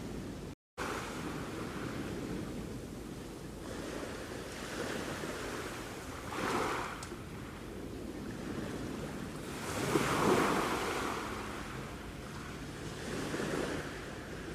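Sea waves washing on the shore, a steady rushing surf with a breaker swelling about six and a half seconds in and a bigger, louder one about ten seconds in. The sound cuts out completely for a moment just under a second in.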